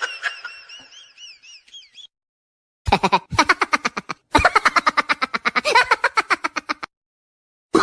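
Cartoon comedy sound effects. First a high, warbling tone wobbles up and down and fades out. After a short silence comes a fast run of rapid pitched pulses, about eight a second, lasting about four seconds.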